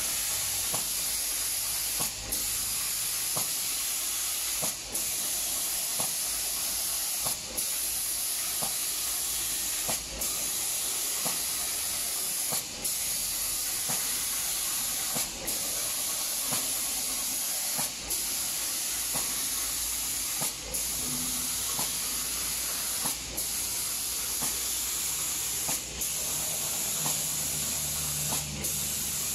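Air spray guns of an automatic spray-painting machine hissing steadily as they spray paint onto MDF cabinet doors. The hiss cuts out briefly about every two and a half seconds.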